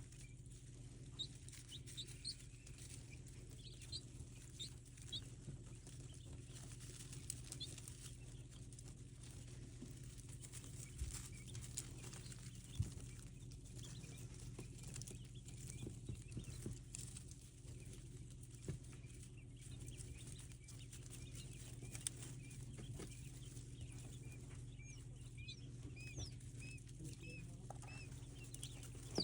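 Quiet barn ambience: faint, high bird chirps come and go over a steady low hum, with occasional light rustles and knocks. The chirps bunch near the start and again near the end.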